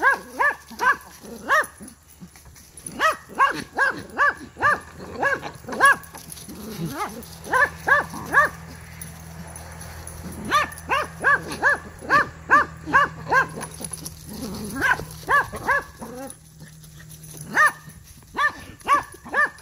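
Buck fainting goat in rut making his courting noises toward a doe: runs of short, quick pitched calls, about three or four a second, in bouts of a second or a few seconds with short pauses between.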